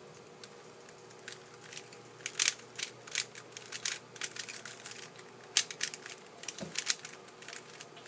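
Dayan GuHong 3x3 speedcube being turned fast by hand in irregular bursts, its plastic layers clicking and clacking, with the sharpest snaps about two and a half and five and a half seconds in.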